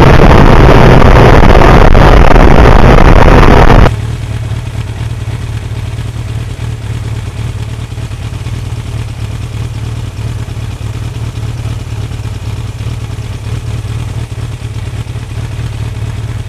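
A 1982 Suzuki GS1100E's air-cooled inline-four heard at riding speed with heavy wind noise, cutting off suddenly about four seconds in to the same engine idling, a steady low hum from behind the parked bike.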